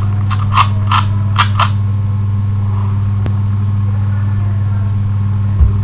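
Steady low electrical hum, with a quick run of short clicks over the first second and a half and one faint click about three seconds in.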